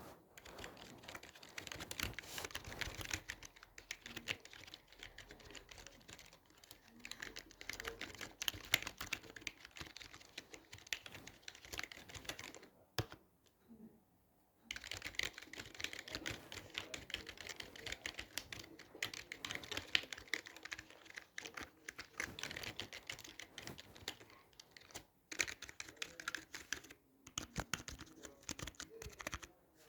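Typing on a computer keyboard: a steady run of rapid key clicks. It pauses for about a second and a half near the middle, and briefly twice more near the end.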